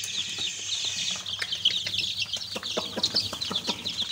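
A brood of newly hatched chicks peeping continuously, many short high cheeps overlapping one another. Scattered light taps join in from about a second and a half in.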